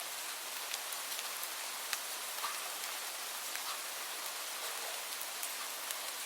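Light rain falling steadily, an even hiss with scattered sharp drips and drop ticks.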